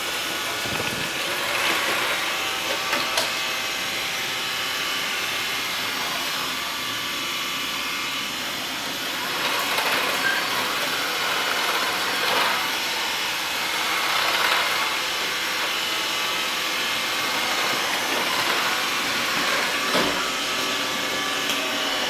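Xiaomi Mi Robot Vacuum running steadily, its brushless fan motor and brushes going as it cleans along the edges of the room.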